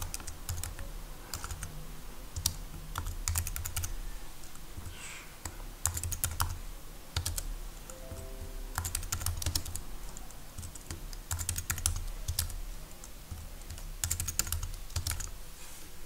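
Computer keyboard typing in irregular bursts of quick keystrokes with short pauses between, over a steady low hum.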